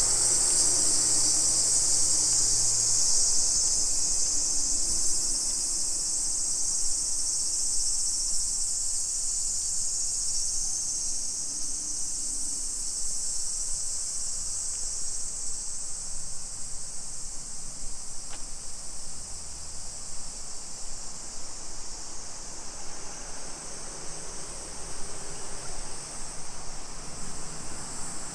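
Insects shrilling in a steady, high-pitched chorus that fades over the second half, over faint street ambience.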